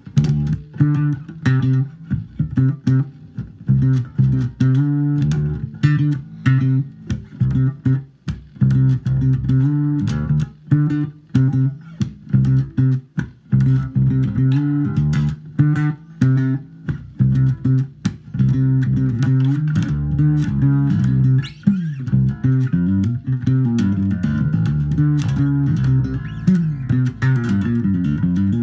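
Harley Benton B550 five-string fretless electric bass, amplified, played as a continuous run of plucked notes, with gliding slides between notes in the second half.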